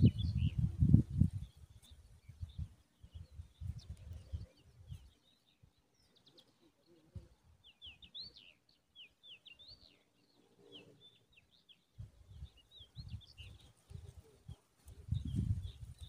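Small birds chirping: many short, high chirps scattered through, thickest in the middle. Loud low rumbling bursts, like wind or handling noise on the microphone, come at the start, again briefly a few seconds in, and near the end.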